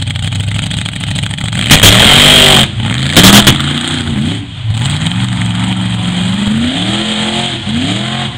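Mud truck engine revving hard over and over, its pitch climbing and dropping as the truck charges through a mud pit. About two seconds in comes a loud rushing burst of noise lasting nearly a second, and a shorter one follows a second later.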